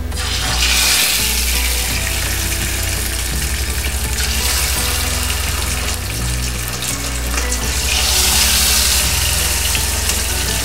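Marinated chicken pieces sizzling in shallow hot oil in a non-stick frying pan, a steady hiss that surges about half a second in and again around eight seconds as fresh pieces go into the oil.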